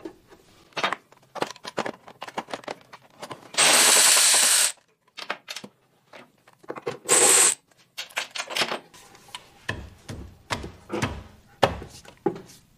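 Power tool running in two bursts on the driveshaft bolts, one about a second long a few seconds in and a shorter one about halfway through, with scattered clicks and clinks of tools and bolts around them.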